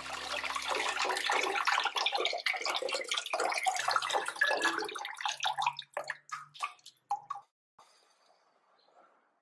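Tap water running and splashing onto basil leaves in a stainless mesh strainer as a hand turns them under the stream. After about five seconds the splashing thins to separate splashes and drips, and near the end only a faint hiss of a pot of water at the boil remains.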